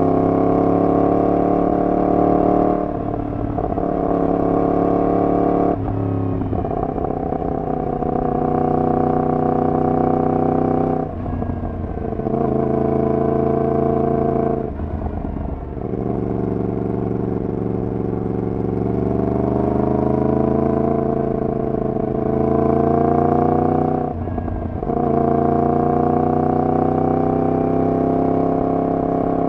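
Yamaha MT-10's crossplane inline-four running through a de-catted full exhaust system while riding, holding fairly steady revs. The note breaks off briefly about five times, and its pitch climbs slowly in the second half.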